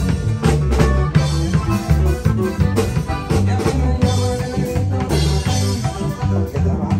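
Live norteño band playing an up-tempo number: button accordion over a steady beat of electric bass and drum kit, with electric guitar.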